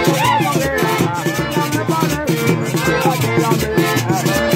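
Live mangulina played on button accordion and güira: the güira's metal scraping keeps a fast, even rhythm over the accordion's melody, with a steady low beat underneath.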